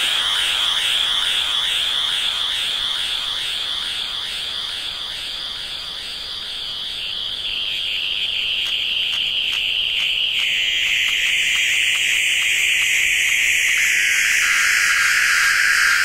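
Plasmaphone, a plasma globe played by hand as an electronic instrument: a high electronic whine with overtones that pulses rhythmically, turns smoother about ten seconds in, and slides down in pitch near the end.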